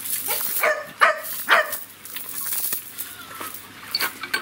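A dog yelping excitedly: three short, high yips in quick succession in the first two seconds.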